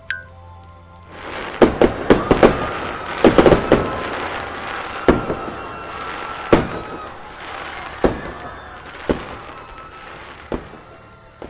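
Fireworks going off: a dense crackle swells up about a second in, with many sharp bangs scattered through it, and thins out toward the end.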